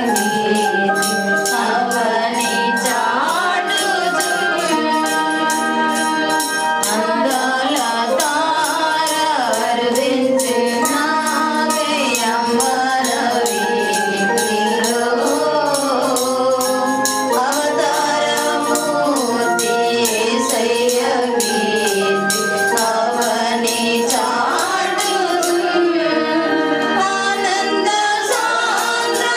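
A group of women singing a Telugu Christian song together into microphones, over a steady percussion beat.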